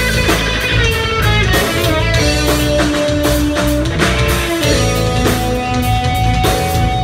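Live rock band playing an instrumental stretch: distorted electric guitars over drum kit and bass, with long held lead notes that slide in pitch.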